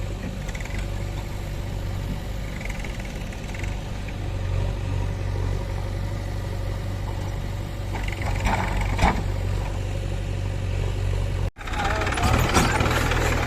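Diesel engine of heavy machinery running steadily with a low hum. A few sharp metallic clanks come about eight and a half to nine seconds in. The sound cuts out for an instant near the end and returns with more clatter.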